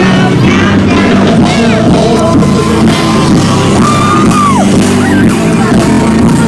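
Loud live concert music over a sound system, with singing and shouting voices heard from inside the crowd. One voice holds a long note that falls away about four and a half seconds in.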